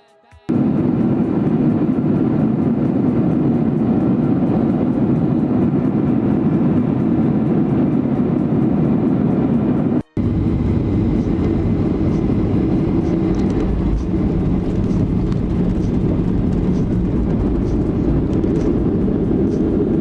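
Airliner cabin noise in flight: a loud, steady, low rumble of engines and rushing air. It drops out for a moment about halfway through, then carries on unchanged.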